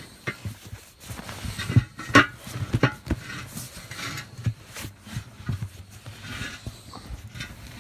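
Irregular knocks, thuds and rubbing from handling an old tractor tire and its rubber inner tube.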